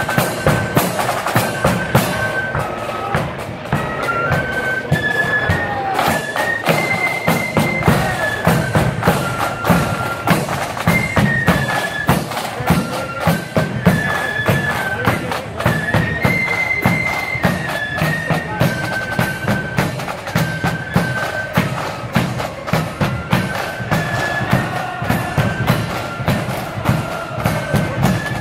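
Pipe band marching: Great Highland bagpipes play a tune over their steady drones, with snare drums rattling and a bass drum beating time.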